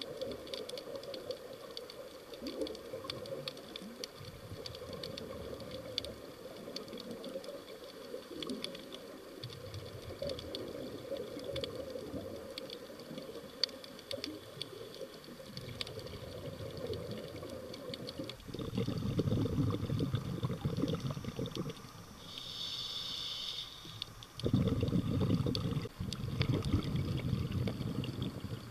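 Underwater scuba ambience: a steady crackle of fine clicks, then two long rushes of regulator exhaust bubbles with a short hiss of an inhale between them, the breathing of a diver on scuba.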